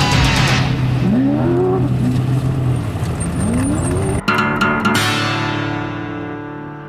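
An off-road race car's engine revving in two rising sweeps under background music. About four seconds in, the engine sound gives way to guitar-led music that slowly fades.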